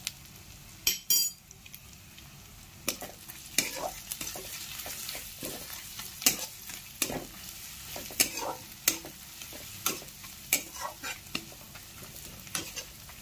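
Sliced onions with crushed ginger-garlic and turmeric sizzling in oil in a wok (kadai) while a spatula stirs and scrapes them: a steady frying hiss with frequent sharp clicks of the spatula on the pan, the loudest knocks about a second in.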